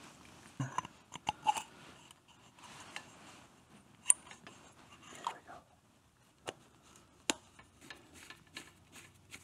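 Scattered sharp metal clicks and small taps as a motorcycle carburetor, with its throttle slide, return spring and cable, is handled and fitted by hand.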